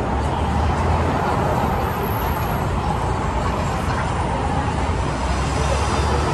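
Road vehicle noise: a steady low engine rumble with road noise, typical of a city bus or passing traffic.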